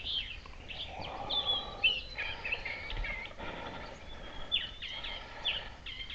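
Small birds chirping, a steady string of short, high chirps and quick up-and-down notes.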